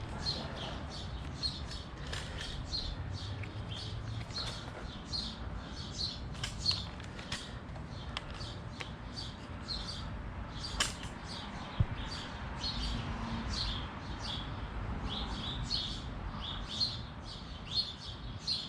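A bird calling over and over in short high chirps, about two or three a second, over a low steady rumble. A couple of sharp clicks sound about two-thirds of the way through.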